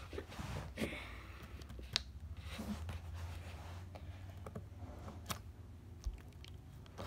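Fingers squeezing and pressing a glittery jiggly slime, giving soft squishes and a few sharp, scattered clicks.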